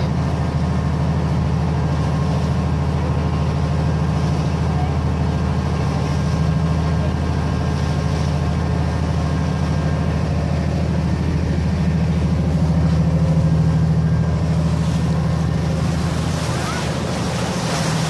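Passenger ferry's engine droning steadily underway, heard from the open deck. Rushing wind and water noise grow stronger near the end.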